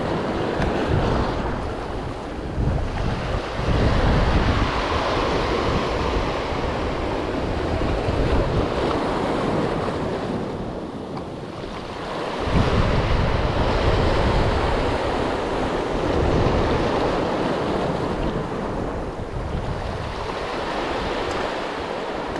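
Small sea waves washing in and breaking over a rocky reef shore, swelling and easing every few seconds, with wind buffeting the microphone in low gusts.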